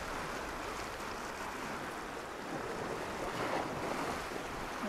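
Sea surf washing against a rocky shore, a steady rush that swells slightly about halfway through.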